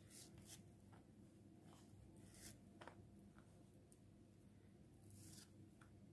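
Near silence: a few faint, brief rustles as slices of cachir are laid by hand into a parchment-lined dish, over a faint steady low hum.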